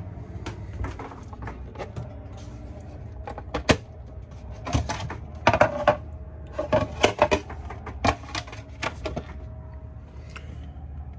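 Sharp clicks and knocks of wooden cabinetry being handled, bunched in the middle of the stretch, over a low steady hum.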